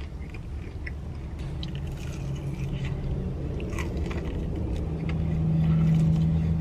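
A person biting into and chewing deep-fried, dry-rubbed chicken wings close to the microphone, with small wet clicks and crunches. A low steady closed-mouth hum starts about a second and a half in and grows louder in the second half.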